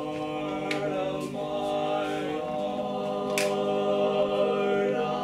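Barbershop chorus singing a cappella, holding sustained chords that shift every second or so, with a few sharp consonant hisses.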